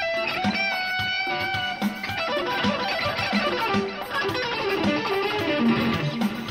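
Electric guitar lead played through effects: long held notes with some vibrato, then a descending run of notes near the end, over a steady beat about twice a second.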